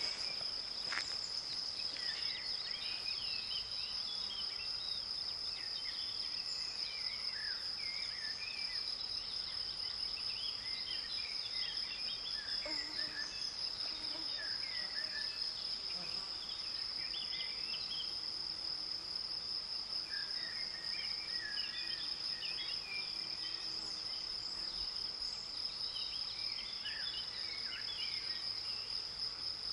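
Meadow in spring: a continuous high-pitched insect drone runs under many birds singing at once, with short chirps and trills coming thick and fast throughout.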